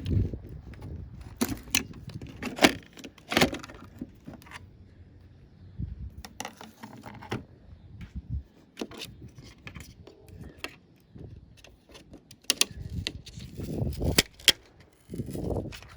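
Irregular clicks, light clinks and short scrapes of a TV's internal parts being handled and pried during disassembly.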